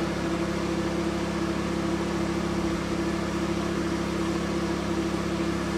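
Steady hum of a diode laser hair removal machine's cooling system running, a constant noise with a few low held tones.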